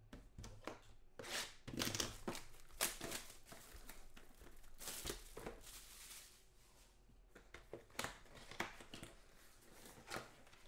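Box of Panini Totally Certified football card packs being opened and the packs handled: irregular crinkling and tearing of the wrappers, with light knocks of cardboard.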